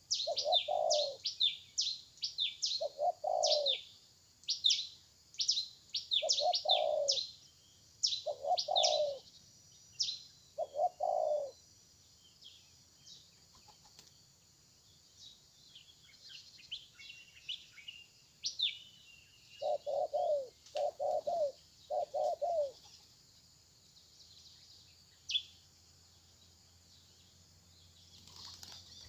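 Spotted dove cooing: short low coos repeated through the first eleven seconds, then a run of three about two-thirds through. Over it runs the rapid high chirping of small birds, dense at first and thinning out after about twelve seconds.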